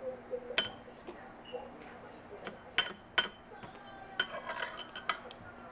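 Cutlery clinking against a dish in a series of sharp, irregular taps with brief ringing, with a quick flurry of them a little past the middle, as food is picked at and eaten.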